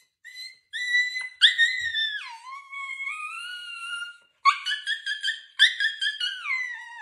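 Small husky-type dog howl-talking: a few short high notes, then a long howl that drops in pitch and is held, then a quick run of short yowling woo-woos, about three a second, ending on a falling note.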